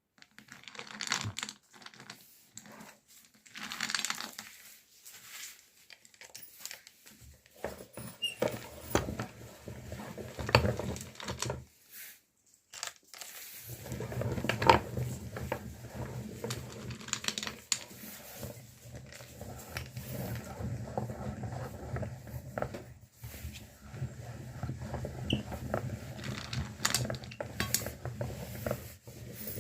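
Meat grinder running with chocolate going through it, a steady low hum with clicking and clatter. It starts about seven seconds in after some scattered clatter, stops briefly near the middle, and runs again from about fourteen seconds on.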